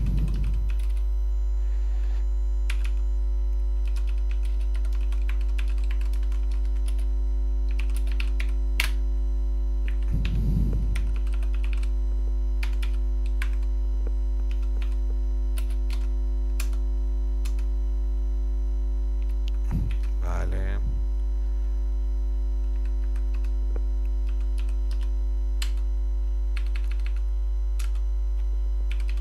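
Typing on a computer keyboard: irregular runs of key clicks as a command line is entered, over a loud steady electrical hum.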